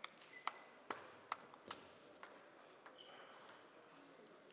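Table tennis ball bouncing: sharp clicks with a brief ringing, about half a second apart through the first second and a half, then a few fainter ones, over quiet hall hush.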